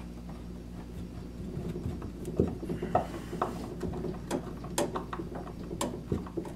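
Scattered light clicks and taps of hands handling a sheathed electrical cable against plastic water pipes and a wooden wall, over a steady low hum.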